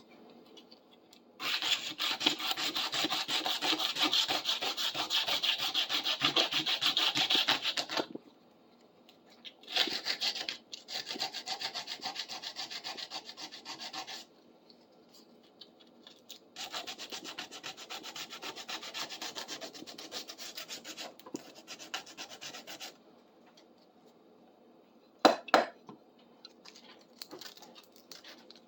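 Sandpaper rubbed rapidly back and forth by hand over a rusty steel part, scrubbing off rust left after a vinegar soak. The sanding comes in three long runs with short pauses between them, and a single knock follows near the end.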